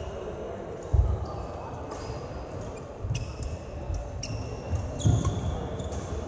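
Play on a court during a match: dull thumps, the strongest about a second in and again near five seconds, with short high squeaks like sports shoes on the floor.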